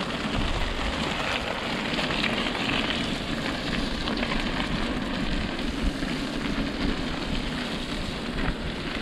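Steady rushing noise of a mountain bike being ridden over a muddy forest trail: tyres rolling through mud, with wind, and no break or single loud event.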